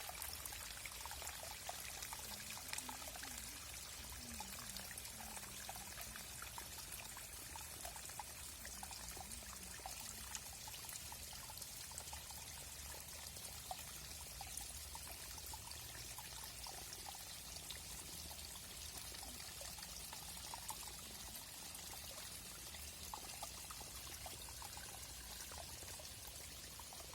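Small forest stream flowing steadily, a continuous rushing with many small bubbling and splashing blips.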